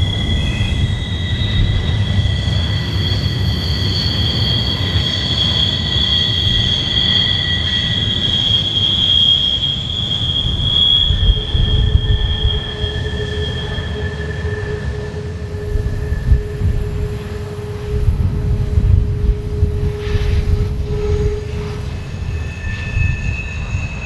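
Wheels of empty BNSF freight cars squealing against the rail on a curve, several steady high-pitched tones at once over a low rolling rumble. The high squeal fades about halfway through as a lower squeal takes over and dies away shortly before the end.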